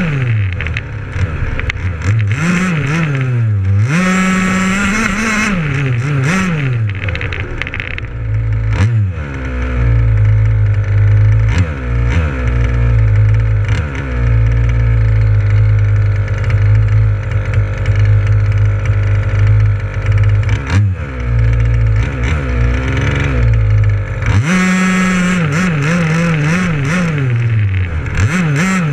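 Two-stroke petrol engine of a 1/5-scale KM Baja RC buggy, heard from a camera mounted on the buggy. The revs rise and fall repeatedly for the first several seconds, settle into a steady note for about fifteen seconds, then rise and fall again near the end.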